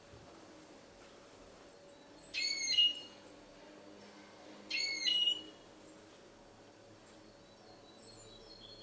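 Goldfinch × canary hybrid (mixto) singing: two short, loud, ringing phrases about two and a half seconds apart, then faint twittering near the end.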